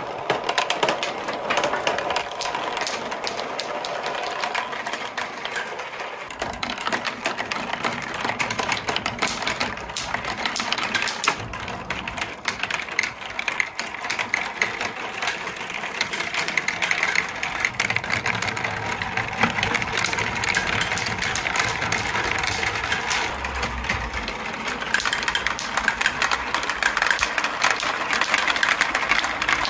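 Several balls rolling and rattling along a plastic marble run of TrixTrack wave slopes, rain gutters and clear pipes. It is a continuous rolling rumble laced with many quick small clicks.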